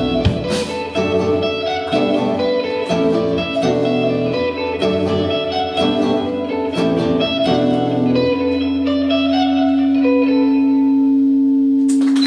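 Live rock band with electric guitars and drums ending a song: a run of accented chord and cymbal hits, then a final chord held ringing for about four seconds. Applause breaks out right at the end.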